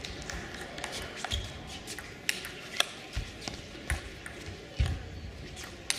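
Table tennis rally: the celluloid ball makes sharp clicks as it strikes the rackets and the table, about two a second, with a few dull thuds in between.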